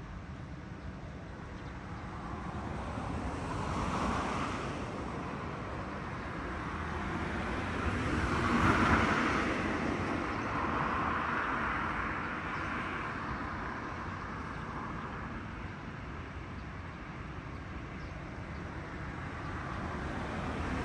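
Steady outdoor rushing noise that swells and fades several times, loudest about nine seconds in, like vehicles passing by.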